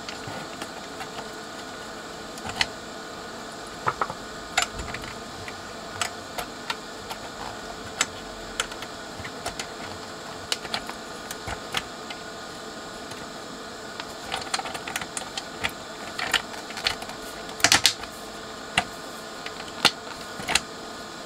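Irregular light clicks and taps of a metal front panel and potentiometer shafts being handled and fitted together on a vintage rack effects unit, with a busier cluster of taps in the last third.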